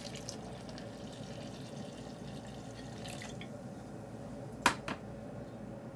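Water being poured into the liquid in a glass blender jar, a steady splashing pour. Two short sharp knocks come close together near the end.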